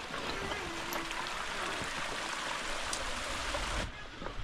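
Running water of a mountain stream, a steady rush that changes abruptly near the end.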